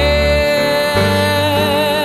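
A ballad singer holding one long sung note with vibrato over piano and bass accompaniment.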